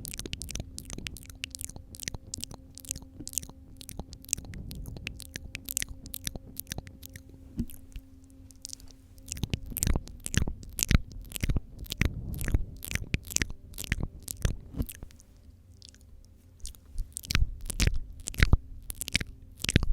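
Close-miked wet mouth sounds of spit painting: irregular tongue clicks and smacks, louder from about halfway on.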